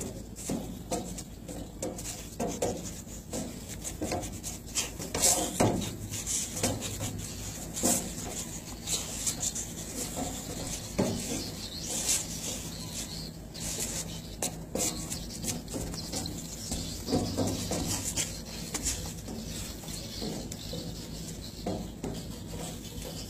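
A man shadow boxing: his feet shuffle and scuff on the deck and he breathes out sharply with his punches, in irregular short bursts, over a steady low hum.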